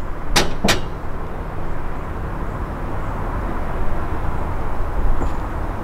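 Two sharp clicks about a third of a second apart, just after the start, over a steady low rumble of outdoor noise.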